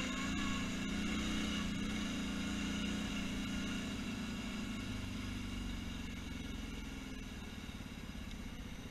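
ATV engine running as the four-wheeler drives over a dirt field track, easing off and settling into a slower, pulsing beat near the end as it slows.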